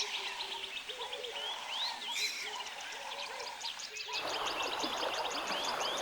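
Forest ambience of several birds chirping and calling in quick repeated notes; about four seconds in, a steady hiss of running water comes in under them.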